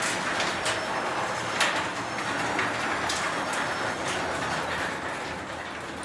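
LiftMaster belt-drive garage door opener running as the sectional door opens along its overhead tracks: a steady whir with scattered clicks and rattles from the door's rollers.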